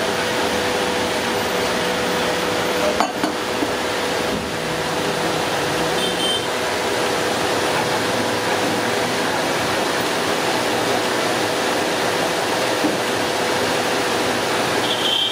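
A steady mechanical hum over an even rushing noise, with a brief click about three seconds in.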